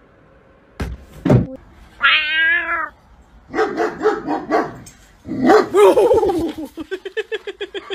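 Two short thumps, then a cat's drawn-out meow with a wavering pitch. More choppy animal cries follow, ending in a rapid run of short pulsing calls, about six a second.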